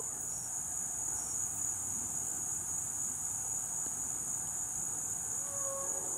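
Steady, high-pitched chorus of night insects.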